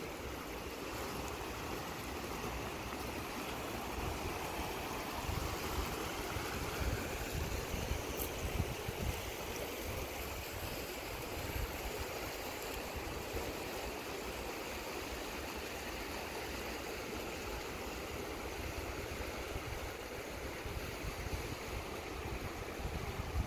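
Whitewater rushing through the concrete channel of an artificial canoe-kayak slalom course: a steady rush of moving water.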